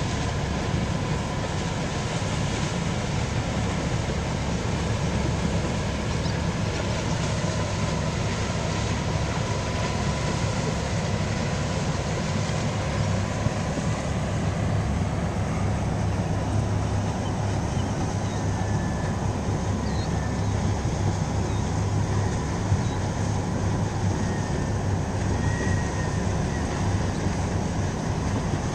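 Great Lakes freighter Herbert C. Jackson passing close by: a steady low rumble of its engine and propeller, with a faint steady hum above it.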